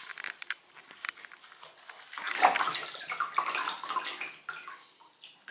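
Water splashing in a bathtub as a soapy puppy is washed by hand: light wet sounds at first, then louder splashing from about two seconds in that eases off near the end.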